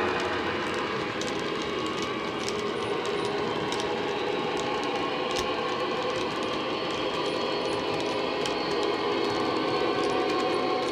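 Model train running: the Roco BR 232's ESU LokSound decoder plays a steady diesel engine sound through an EM1 speaker. Over it, model wagon wheels click irregularly over the rail joints.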